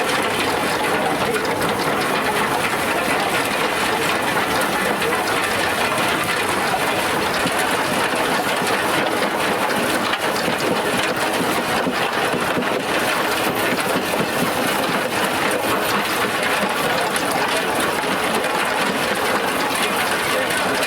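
Antique farm machinery running with a steady, unbroken mechanical clatter.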